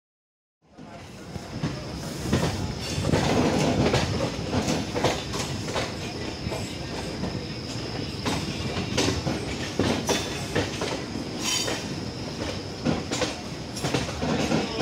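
Electric MEMU train running, heard from on board: the wheels clatter over the rails in irregular clicks over a steady rumble, with a thin high whine held throughout. The sound fades in just under a second in.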